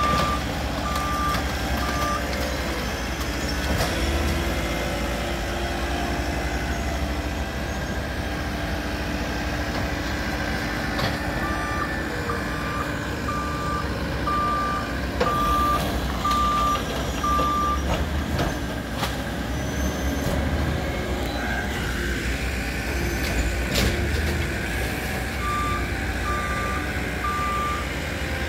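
Diesel engines of a wheel loader and a rear-loader garbage truck running steadily, with a backup alarm beeping in three runs: briefly at the start, for about six seconds in the middle, and again near the end.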